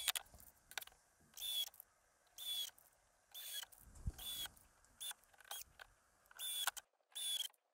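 Cordless drill-driver driving tiny 16mm screws into thin plywood in short whirring bursts, about one a second, each whir dipping in pitch as it stops.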